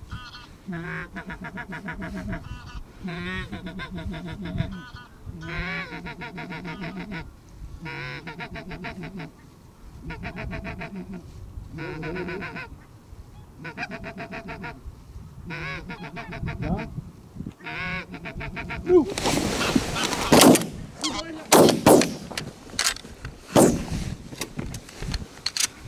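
Barnacle geese calling, rapid yapping calls in bouts about every second and a half. In the last seven seconds a ragged volley of shotgun shots, about half a dozen, fired at the incoming geese.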